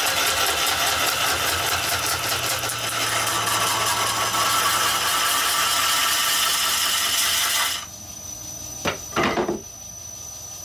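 Turning tool cutting a tenon on a large mesquite log spinning on a wood lathe: a continuous scraping cut for about eight seconds. The cut then stops suddenly, leaving the lathe running with a thin high whine and two brief scrapes near the end.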